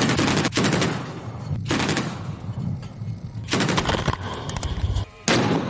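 Bursts of automatic weapons fire during a live-fire exercise: rapid strings of shots at the start, about a second and a half in, around three and a half seconds in, and again near the end, with a rumbling echo between the bursts.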